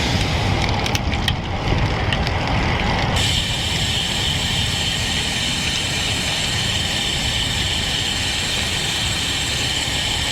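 Wind rumbling on the microphone of a camera on a moving road bike, with a few light clicks early on. About three seconds in, a steady high buzz of the rear hub's freewheel ratchet sets in as the rider coasts.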